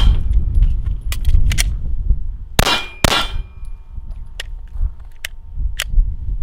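Two quick 9 mm shots from a Glock 45 pistol about two and a half seconds in, each with a metallic ringing after it. Several light clicks follow near the end as the pistol is handled.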